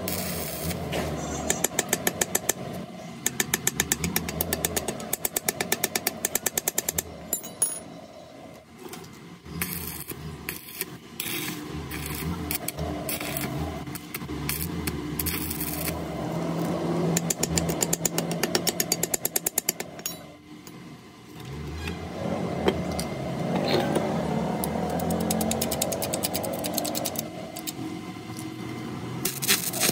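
Workshop machine noise with bursts of rapid, evenly spaced mechanical rattling, several strikes a second, that stop and start a few times.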